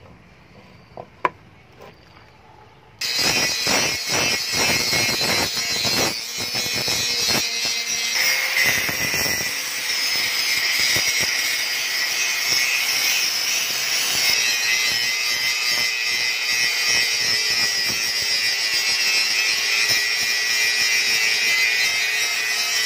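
Quiet handling of the steel blade with a sharp click about a second in; about three seconds in, a handheld angle grinder starts grinding the rusty steel billhook. Its abrasive disc gives a loud, steady high whine with a rasp, uneven at first as the disc touches the metal on and off, then continuous.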